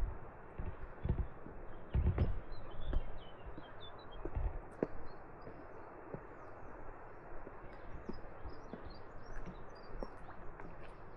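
Footsteps crunching on a rocky path, heaviest in the first few seconds and fading about halfway, while small birds chirp repeatedly over a steady outdoor hiss.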